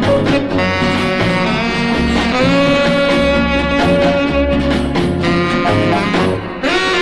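Old popcorn-genre oldies record playing: sustained melodic notes over a steady bass line. The sound drops away briefly near the end, then the music picks up again.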